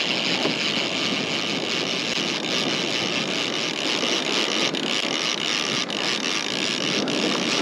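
Panga boat's outboard motor running steadily, with a constant rushing noise of wind and water.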